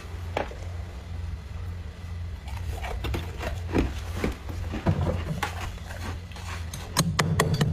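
A scraper crunching and scraping at thick, crunchy freezer frost, first in scattered strokes, then in fast, even strokes about four a second near the end. A steady low hum runs underneath.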